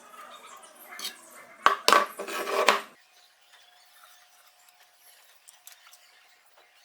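Hard objects clattering and knocking against each other: several sharp knocks between about one and three seconds in, then only a faint steady tone.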